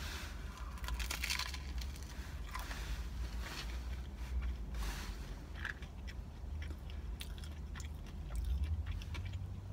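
A person biting into and chewing a mouthful of burger on grilled sourdough bread, heard up close as irregular small mouth noises, over a low steady hum.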